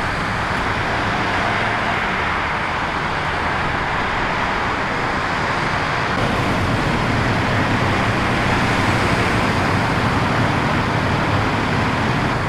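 Steady highway traffic and engine noise, an even rush over a low idling rumble, with a slight rise in level about six seconds in.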